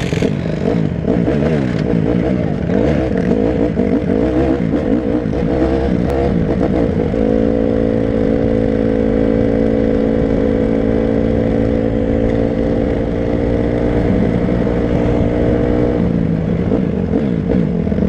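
Honda quad (ATV) engine running under way. Its pitch rises and falls with the throttle for the first several seconds, holds steady at a cruise for about seven seconds, then changes again near the end.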